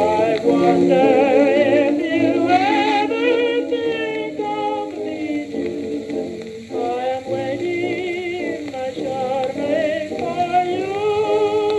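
1920s dance-band recording playing from a 78 rpm shellac record on a 1964 Teppaz Oscar portable record player. A sweet melody with heavy vibrato carries over sustained band chords, with a thin surface hiss.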